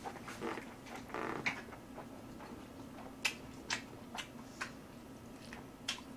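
Close-miked eating sounds: soft chewing, then a handful of short sharp clicks, over a faint steady hum.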